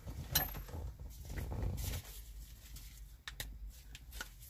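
Hands handling parts and tools: rustling with a sharp click about half a second in, then a few light ticks near the end.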